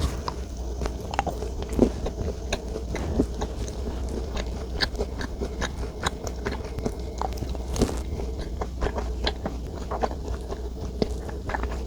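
Close-miked chewing and biting of chocolate desserts: many short, irregular clicks and soft crunches of mouth sounds over a low steady hum.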